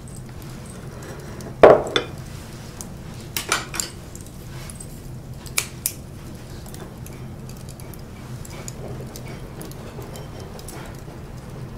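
Ceramic bowls and plates being set down on a table: a loud clack a little under two seconds in, a few lighter clinks around three and a half seconds, and two sharp taps near six seconds, over a low steady hum.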